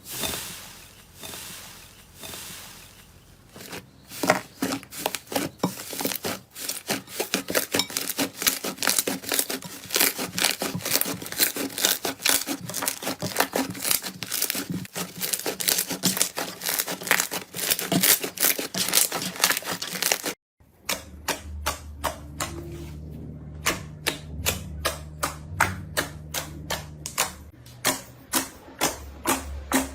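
Slime being squeezed and pressed by hand, making rapid crackling clicks and pops. After a cut about two-thirds of the way in, the clicks come slower and more evenly, with a low hum beneath them for a few seconds.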